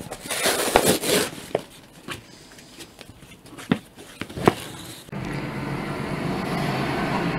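A brown paper book mailer being torn and rustled open, with a burst of paper noise at the start followed by scattered crackles and taps. About five seconds in, the sound switches abruptly to the steady rumble of a passing train heard through an open window.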